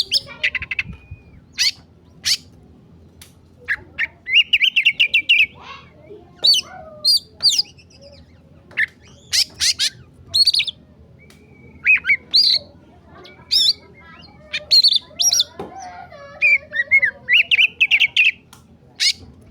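Oriental magpie-robin (kacer) singing in an agitated, fired-up way: a varied run of short phrases of sharp whistled notes, harsh squawks and rapid buzzy trills, with brief pauses between them.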